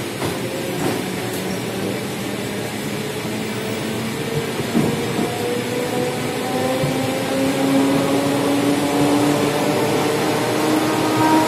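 Electric suburban train running, with wheel and car rumble inside the vestibule. From about halfway, the traction motors whine, rising steadily in pitch as the train gathers speed.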